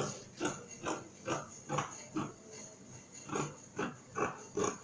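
Scissors snipping along a marked line in a sheet of sewing material: a steady run of short cuts, about two a second, with a brief pause a little past the middle.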